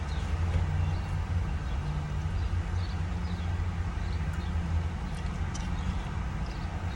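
Steady low hum of a car engine idling, with a few faint small clicks over it.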